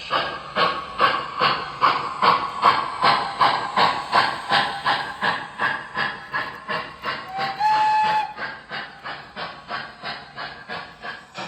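Model steam locomotive's electronic sound system running: steady steam chuffs at about two to three a second, with a short whistle toot about two-thirds of the way through.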